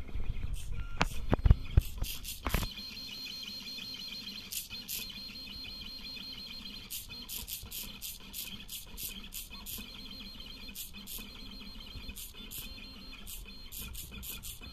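Stepper motors of a DIY drawer-slide XY pen plotter whining steadily, with rapid clicks and ticks, as the pen carriage shuttles back and forth laying down hatch fill. A few louder thumps come in the first two seconds.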